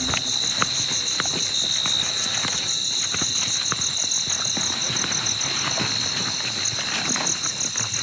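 Night insect chorus of crickets and other insects: a steady high shrill tone with a fast pulsing trill above it. Footsteps crunch irregularly through dry leaves and undergrowth.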